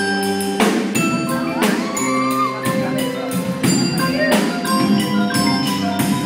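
Winter drumline percussion ensemble playing. Marimbas and other mallet keyboards hold pitched chords over repeated sharp drum hits.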